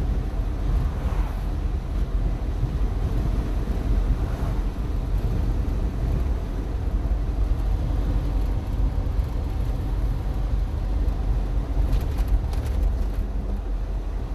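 Steady low rumble of a vehicle driving on a paved road, heard from inside the cab: engine and tyre noise.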